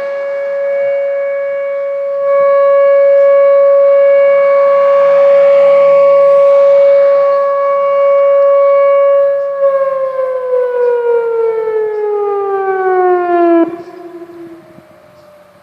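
Nuclear power plant emergency warning siren sounding a steady tone during a siren test. About ten seconds in it winds down, the pitch falling steadily, then drops off suddenly to a faint, still-falling tone near the end.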